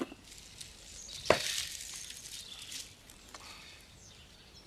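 Faint handling noises: quiet rustling with a single sharp knock about a second in, and a few lighter ticks.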